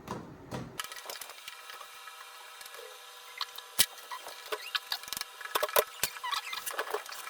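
Scattered light clicks and taps from handling inside an opened electric piano while its interior is cleaned with sticky cleaning putty, the sharpest click about four seconds in.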